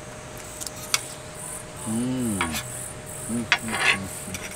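Insects chirping in a high-pitched, pulsing rhythm, about three pulses a second. A short hummed voice rises and falls about two seconds in, and a few sharp clicks and a brief clatter of cutlery come near the end.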